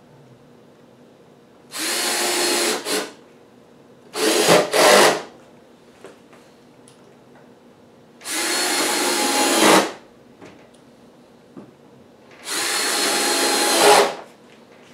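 Cordless drill driving 1¼-inch drywall screws into redwood boards in four short runs, the second in two quick pulses. Most runs grow louder toward the end as the screw seats.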